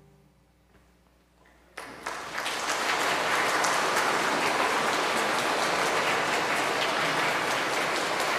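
A final organ chord fades into near silence. About two seconds in, a church congregation breaks into applause that then goes on steadily.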